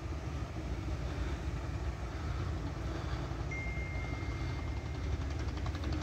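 A steady low engine rumble, like a diesel idling nearby. A faint thin steady tone sounds for about a second and a half in the middle.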